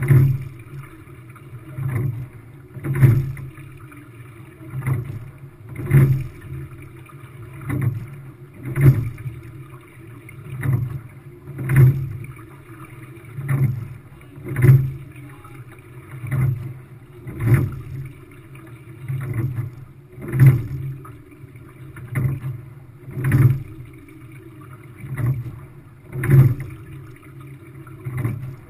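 Quad sculling shell under way at a steady stroke rate: knocks from the oars and rigging come about once a second, the strongest about every three seconds in time with each stroke, over a steady wash of water along the hull.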